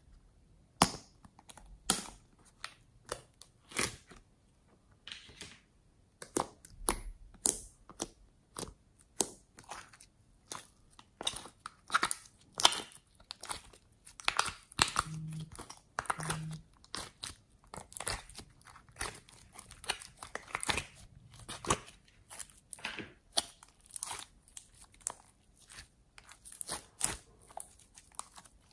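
Glossy slime pulled from a plastic compartment tray and squeezed and stretched by hand: an irregular run of sticky pops, squelches and crackles, often several a second.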